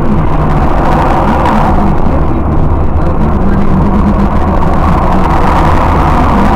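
Car cabin noise at highway speed, recorded by a DVR 668 dashcam's built-in microphone: a steady low engine hum under continuous tyre and road noise.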